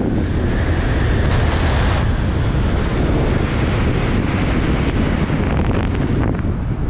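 Loud, steady wind rushing over a helmet-camera microphone from the airspeed of a parachute canopy diving toward a swoop landing. The hiss is a little stronger for about a second early on.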